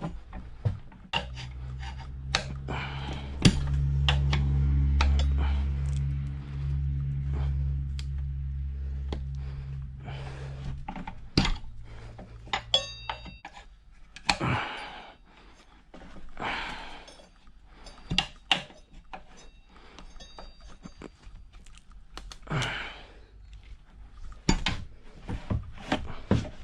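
Metal tools clinking and knocking against a motorcycle wheel rim as a tire is worked onto it by hand, with hard breaths now and then. A low steady hum runs under the first ten seconds or so, then stops.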